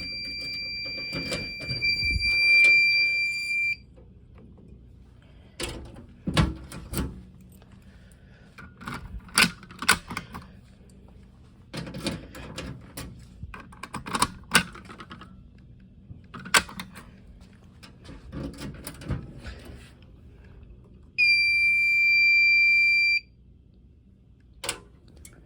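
Fire alarm control panel's built-in buzzer sounding one steady high-pitched tone, which cuts off about four seconds in. It is followed by a series of scattered clicks and knocks, and near the end the buzzer sounds again for about two seconds.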